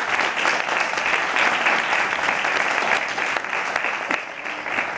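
Audience applauding: dense, steady hand-clapping that eases off a little near the end.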